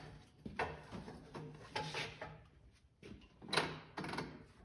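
Farmall Lo-boy tractor's four-cylinder engine, cylinder head removed, being turned over by hand with a homemade turning tool: a run of short mechanical scrapes and clicks, about five of them, the loudest about three and a half seconds in.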